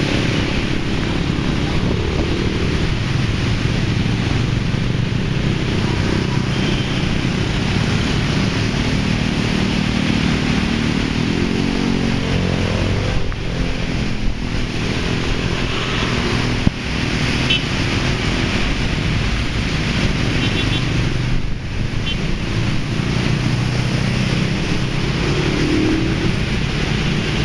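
Dense, slow-moving road traffic on a rain-wet multi-lane road: a steady mix of car, van and truck engines running, with a constant hiss over them.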